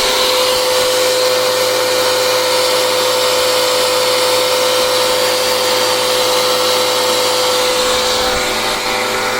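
Ibell Wind55 electric car pressure washer running with a loud, steady motor-and-pump drone that holds one steady tone, then cuts off suddenly at the end. It keeps running instead of stopping at pressure because no water is reaching the pump: the hose connector was not pushed fully home.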